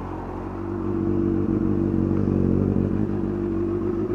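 Honda CBR1000RR Fireblade's inline-four engine idling steadily just after a cold start, still warming up. It grows a little louder about a second in, then holds.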